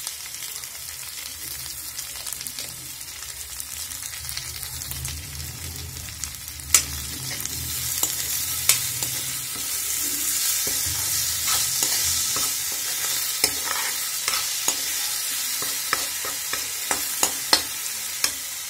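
Chopped tomatoes and onions sizzling in oil in a metal kadai while a spatula stirs them, scraping and tapping against the pan. The sizzle gets louder about eight seconds in, and the spatula taps come more often near the end.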